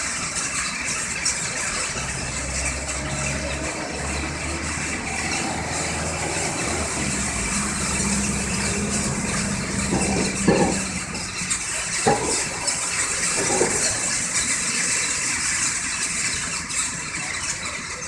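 Dense, steady chatter of a huge flock of small birds overhead. A low engine hum sits underneath in the first half, and three sharp knocks come about halfway through.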